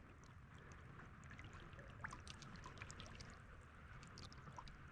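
Near silence: a creek running faintly, with small scattered ticks and trickles of water.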